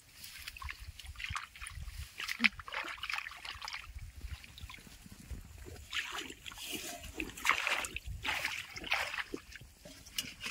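Irregular splashing and sloshing of shallow muddy water being worked by hand, with a metal bowl scooping and bailing water near the end.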